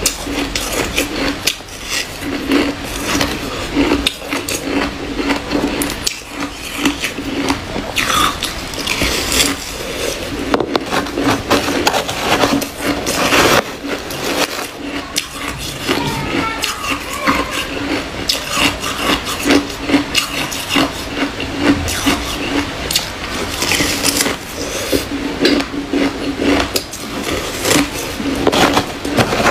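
Hard frozen ice being bitten and chewed close to the microphone: dense, irregular cracking crunches. Between bites comes the clatter of ice pieces in a plastic tub.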